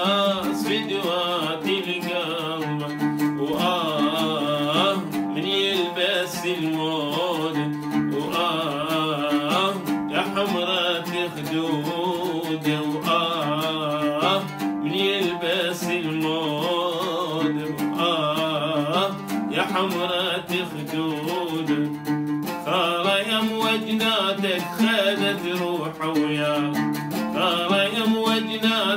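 An oud being played, with a man's singing voice over it in long, wavering melodic lines: an Iraqi folk song.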